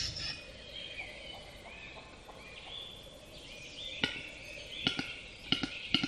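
Male western capercaillie's display song: sharp single clicks from about four seconds in, coming faster each time, the opening of its lekking call. Faint high chirps lie under the first part.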